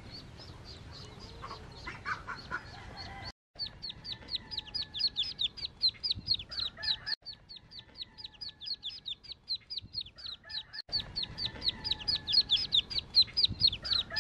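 Muscovy ducklings peeping: a fast, steady run of short, high, falling peeps, about five a second.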